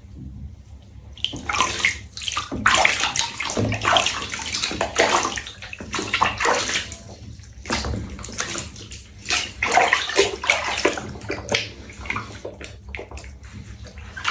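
Water splashing and sloshing in a bath as a soaped-up pet is washed, in irregular gushes that start about a second in.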